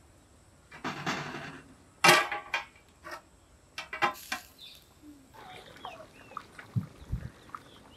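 Steel plate lid and iron kadai clattering: a scrape, then a sharp ringing clang about two seconds in as the lid goes on, followed by a few lighter metal clinks from a ladle.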